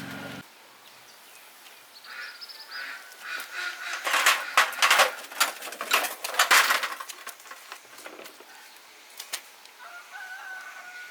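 Birds calling, with a burst of loud, rapid clatter like flapping wings in the middle.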